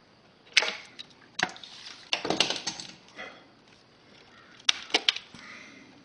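Small hand wire cutters snipping and stripping thin plastic-insulated hookup wire: sharp snaps about half a second in and again a second later, a quick run of snips around two seconds in, and three more near the end.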